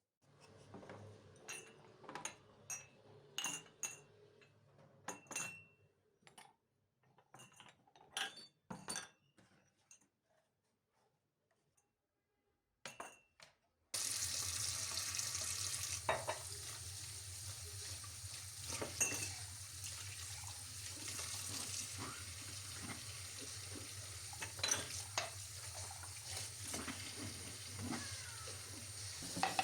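Kitchen work: dishes and cutlery clink in scattered knocks. About halfway through, a steady rushing noise starts suddenly and runs on under further clinks.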